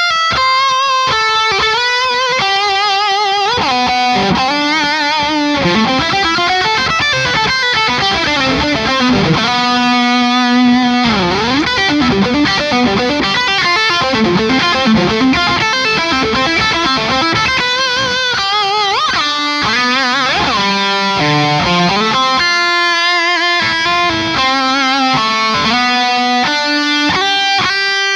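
Distorted electric guitar played through a Friedman BE-100 100-watt tube amp head on a high-gain channel: a lead line of single held notes with string bends and vibrato.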